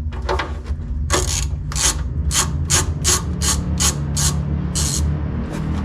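Rhythmic rasping strokes of a hand tool, about two and a half a second, starting about a second in and stopping near the end, over a steady low hum.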